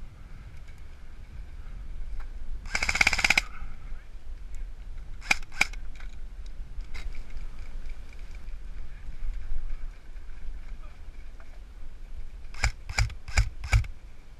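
Airsoft gun firing: a short full-auto burst of rapid sharp snaps about three seconds in, two single shots a couple of seconds later, and four quick shots near the end.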